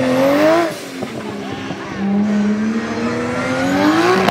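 Race car engine at full throttle, its pitch climbing for under a second and then easing off, then climbing again in one long pull from about two seconds in until it breaks off near the end.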